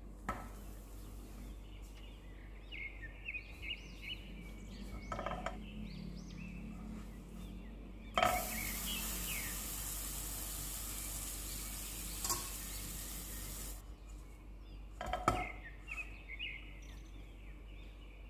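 Margarine-spread bread toasting in a nonstick pan: a few light knocks against the pan, and a loud sizzle for about five seconds in the middle that starts and stops suddenly. Small birds chirp in the background.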